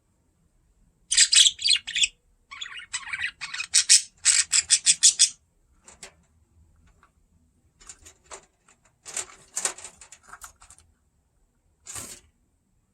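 Budgerigar chirping in quick runs of short, high-pitched chirps, loudest in the first few seconds, then quieter scattered chirps and one last short burst near the end.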